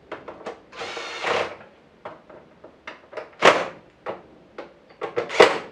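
Cordless drill-driver briefly running to drive a screw about a second in, among clicks and knocks of the screws and metal mounting plate against the monitor's plastic back, with two louder knocks later.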